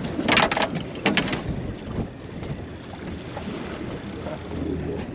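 Wind buffeting the microphone over water washing against a fishing boat's hull, with two short rushing bursts in the first second and a half.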